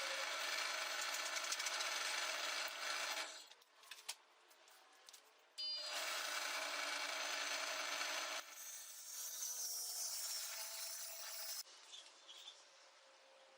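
Electric power tool cutting wood, in two steady runs of a few seconds each with a short pause between, then a quieter, higher-pitched stretch.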